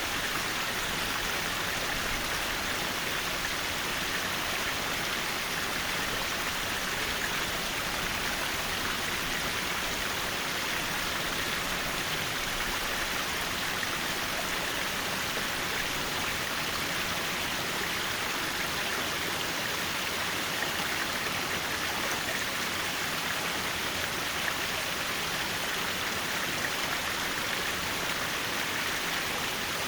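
Mountain valley stream water flowing over rocks: a steady, even rush with no breaks.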